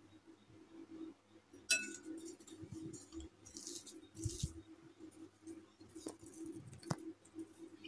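A glass mixing bowl clinks once with a short ring early in the second second, followed by faint clicks and rustles of a plastic modak mould being handled and packed with chocolate biscuit dough, over a faint steady hum.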